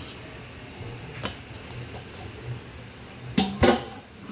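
Cooking utensils knocking on a metal pot: a light click, then two loud clanks close together near the end, each leaving a short ring.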